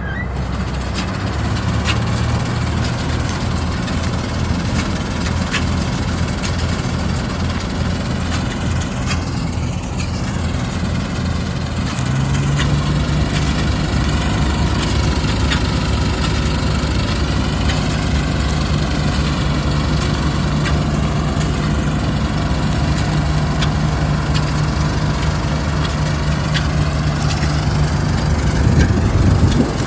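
Clayson 8080 combine harvester running under steady load, its engine hum carrying a broad mechanical clatter. About twelve seconds in the engine pitch steps up and then holds.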